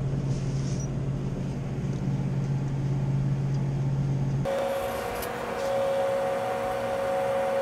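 Steady low hum of running machinery. About four and a half seconds in it switches abruptly to a higher steady whine.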